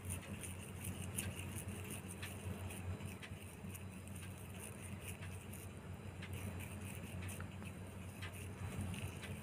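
Faint soft clicks and taps of oiled hands shaping and rolling bhatura dough into balls on a wooden board, over a steady low hum.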